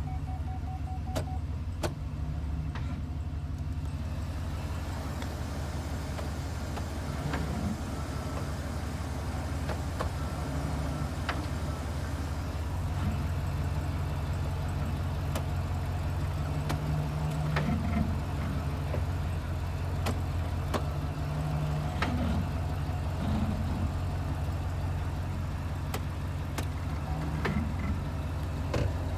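Car engine idling steadily, with sharp irregular clicks every few seconds over the hum; the source of the clicking is unidentified.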